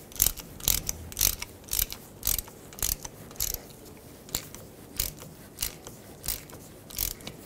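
A 3/8-inch drive ratchet clicking in short bursts, about two a second, as it is swung back and forth to run the fill plug into the rear differential housing and snug it up.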